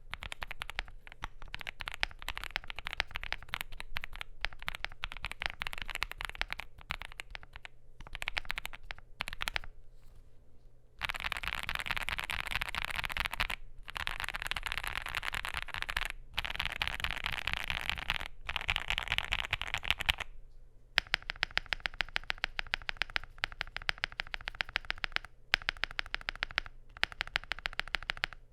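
Typing on a Finalkey V81 Plus mechanical keyboard with lubed, filmed CIDOO Matte linear switches in a gasket-mounted polycarbonate plate. The keystrokes come in runs of rapid clacks with short pauses between them. Near the end the strokes become more evenly spaced.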